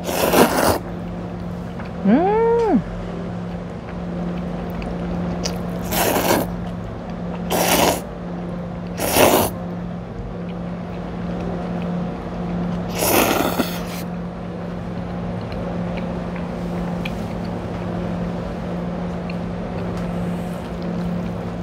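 Spicy cold noodles (bibim-guksu) being slurped from a bowl in five short loud bursts, the last near the middle the longest, over a steady low background hum. A short hummed voice sound rises and falls a couple of seconds in.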